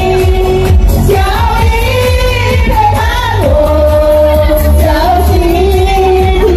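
Karaoke: women singing through handheld microphones over a loud amplified backing track with a strong bass.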